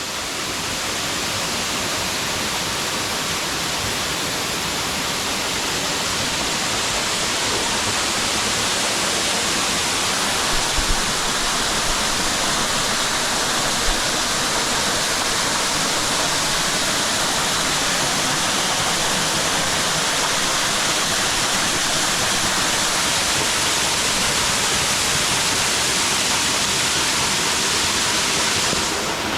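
Waterfall pouring steadily, a close, dense rushing of water falling about 20 feet onto a creek, growing slightly louder over the first several seconds.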